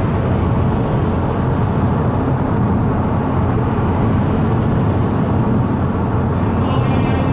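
Steady road and engine noise inside a car cruising at motorway speed. Music with rising tones comes in near the end.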